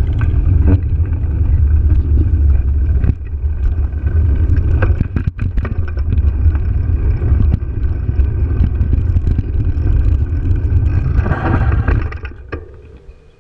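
Wind buffeting a bike-mounted GoPro's microphone and tyres rumbling over cracked pavement while riding, with scattered clicks and rattles. The noise fades away about twelve seconds in as the bike slows to a stop.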